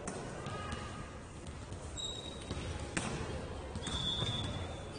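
Players in play on an indoor court: a ball thuds on the floor, and sports shoes squeak briefly on the court surface, around 2 s in and again near 4 s.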